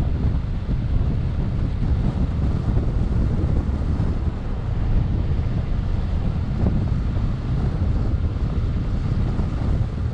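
Mazda CX-9 driving across soft desert sand, heard as a steady low rumble in which wind buffeting the microphone is mixed with the car's running noise.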